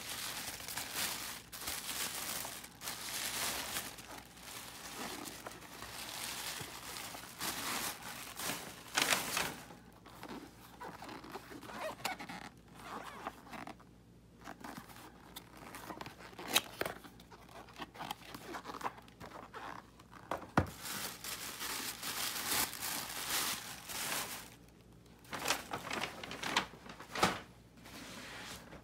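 Crumpled kraft packing paper rustling and crinkling as it is pulled out of a bag and handled, with a few sharp knocks of boxes being handled and set down.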